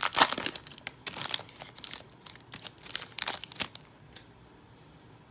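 Plastic wrapping crinkling and tearing as a trading-card box and its packs are opened, a run of quick crackles that stops about three and a half seconds in.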